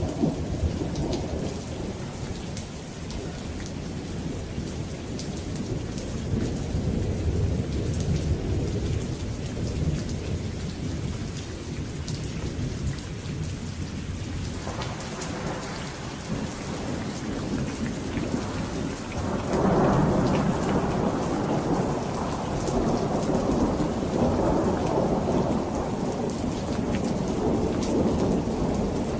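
Steady rain falling with the patter of drops, under rolling thunder. The rumbles swell in the middle and grow loudest about twenty seconds in.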